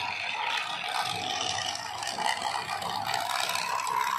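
Battery-powered toy trains running on plastic track: a steady whir of the small electric motors with the wheels rattling over the rails.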